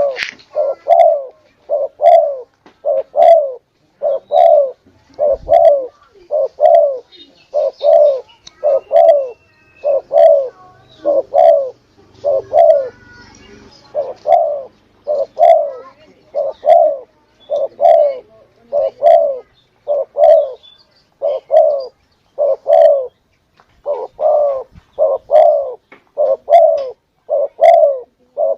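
Spotted dove (tekukur) cooing: a steady run of low coo notes about one a second, with a short break about halfway through.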